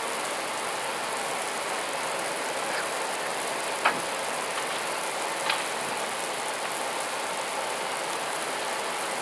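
Steady hiss of an Airbus A320 cockpit with its engines running, mixed with rain on the windscreen. Two light clicks come about four and five and a half seconds in.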